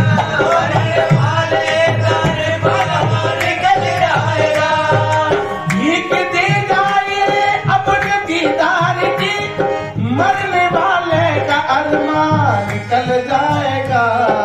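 Live qawwali music: a harmonium melody and singing over a steady hand-drum rhythm on a dholak.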